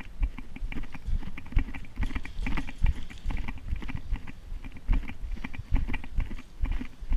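Footsteps of someone moving on foot while carrying gear, a continuous run of irregular thumps with crackling and rustling.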